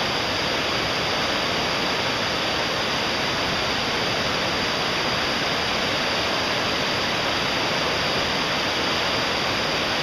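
Fast-flowing mountain river rushing through rapids over boulders: a steady, even noise of white water.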